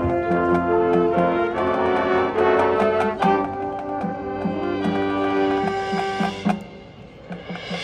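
Marching band brass and front ensemble playing sustained chords over a repeated low note. The music drops away briefly about seven seconds in, then swells back.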